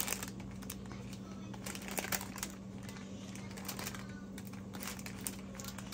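Parchment paper muffin liner crinkling and rustling in irregular crackles as it is peeled away from a chocolate muffin, over a steady low hum.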